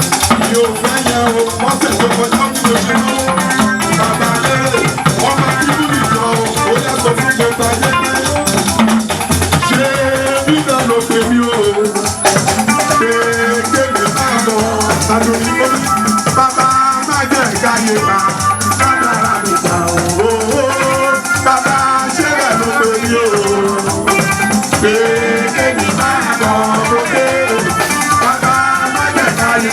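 Church band music playing steadily: a shaker rattles continuously over a keyboard carrying a wandering melody.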